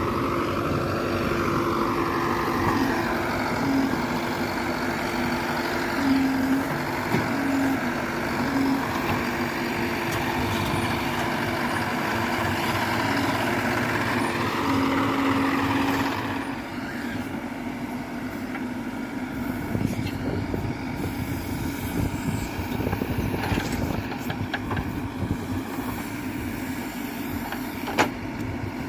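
Diesel engines of a tractor and a backhoe loader running under work, with a whine that rises and falls twice. About halfway through the sound drops to a lower steady run, and a few sharp knocks come near the end.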